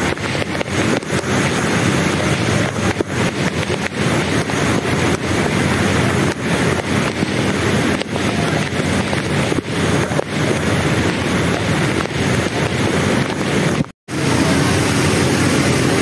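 Steady rushing noise of heavy rain and a swollen, fast-flowing river in flood, with wind buffeting the microphone. It breaks off for an instant near the end.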